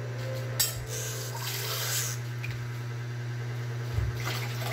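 Water heating in a stainless steel pot of pork on the stove, not yet boiling, over a steady low hum. A sharp click comes about half a second in, a short hiss follows around a second in, and a low knock is heard near the end.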